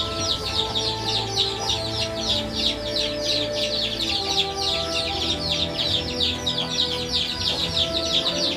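Continuous fast high-pitched chirping, about ten short falling chirps a second, with steady held tones underneath that change pitch every second or so like background music.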